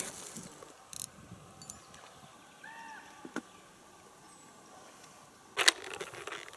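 Fishing gear being handled in a boat: a few small clicks over a quiet background, a short chirp about halfway, then one sharp rustle near the end as the rod and its fabric case are handled.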